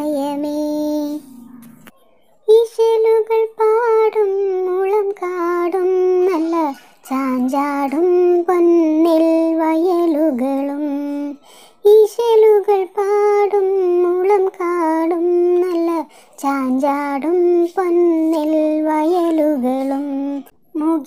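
A child singing a Malayalam Kerala Piravi song solo and unaccompanied, in long held phrases with short breaks for breath between them.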